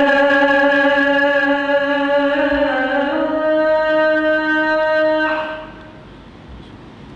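A muezzin's voice chanting the Islamic call to prayer (adhan), holding one long drawn-out note that steps up in pitch about halfway through and ends about five seconds in.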